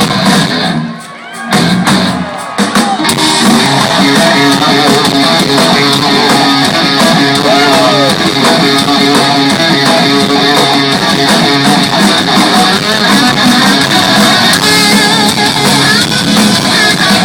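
Live rock band playing loud, led by electric guitar. The band drops out briefly about a second in, then comes back in full.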